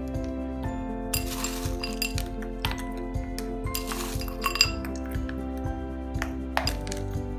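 Background music with sustained notes and a steady beat. Over it, frozen berries rattle and clink against a ceramic bowl as a hand scoops them out: once about a second in and again around three and a half seconds in.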